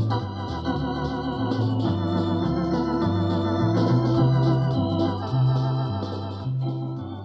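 Eminent 2000 Grand Theatre electronic organ playing music: sustained chords over a pedal bass line that steps from note to note, fading down near the end. It is heard from an old tape recording with wow and flutter.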